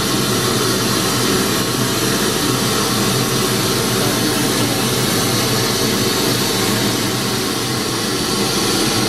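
Steady test noise, a hiss spread evenly from low to high, played loud through a PA sound system while the loudspeaker processor's first FIR filter setting is engaged. It is part of a check of the system's frequency response.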